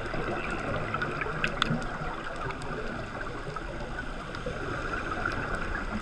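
Steady hiss and crackle of water with scattered small clicks, recorded underwater by a diving camera.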